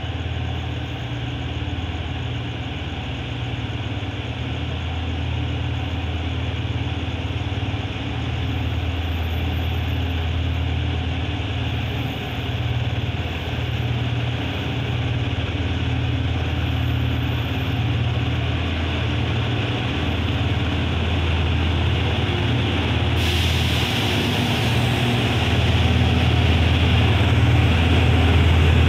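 GE diesel-electric locomotive approaching with a long freight train: a low engine drone that grows steadily louder. About 23 s in, the rumble and rush of wheels on rail join it as the train nears.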